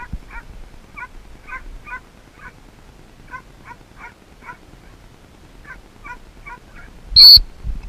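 A dog-training whistle blown once, very loud and brief, about seven seconds in: a stop whistle to sit the running retriever before the next cast. Under it a faint series of short bird calls repeats about two or three times a second.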